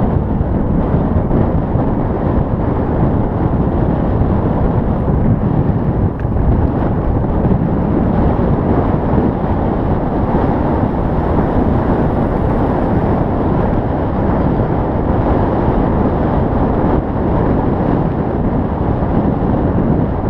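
Wind rushing over the microphone of an action camera carried on a moving bicycle: a steady, loud, low rumble at riding speed.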